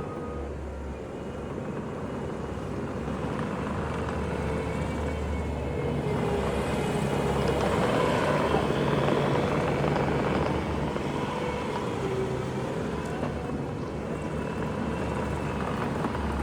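2022 Bobcat T740 track skid steer's diesel engine running under work, its note building to a peak about eight seconds in and easing off again.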